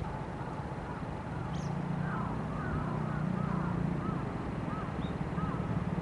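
A bird repeating short rising-and-falling calls, about two a second, starting about two seconds in, over a steady low hum like a distant engine.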